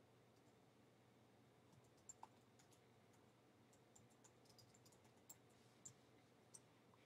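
Faint clicks of computer keyboard keys as a short line of text is typed, irregularly spaced, from about two seconds in until near the end, over near-silent room tone.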